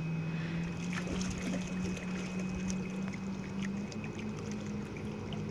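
Jet ski engine running at a distance as a steady hum, its pitch rising slightly about a second in as it speeds away, over small sounds of water lapping.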